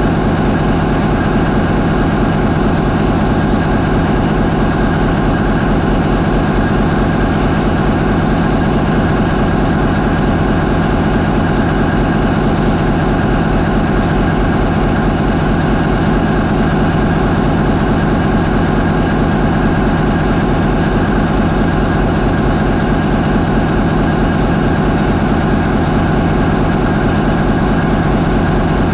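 MAN 20V28/33D STC V20 marine diesel main engine running steadily at 550 RPM, a loud, even drone with a rapid, regular firing pulse.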